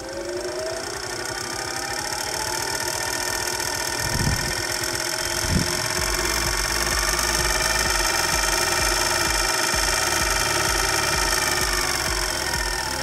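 Cowells 90ME lathe running under a 150 W DC motor and belt drive, its whine rising in pitch over the first few seconds as the speed controller is turned up, holding steady, then falling near the end as it is turned back down. Two short low thumps come about four and five and a half seconds in.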